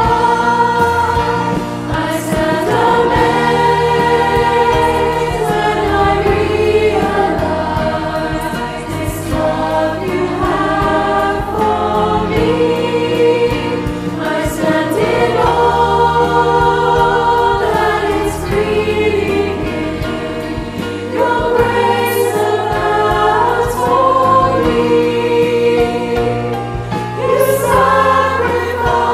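A virtual choir of mostly young voices singing a worship song together, their separate home recordings mixed into one.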